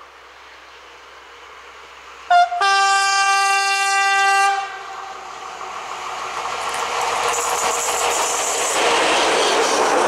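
SNCF BB 67200-class diesel locomotive sounding its horn: a short toot about two seconds in, then a steady one-note blast of about two seconds. After the horn the locomotive's engine and wheels on the rails grow louder as it approaches and passes, loudest near the end.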